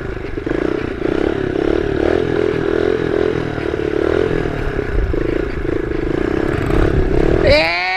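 Kawasaki KLX110's small air-cooled single-cylinder four-stroke engine running steadily at low revs.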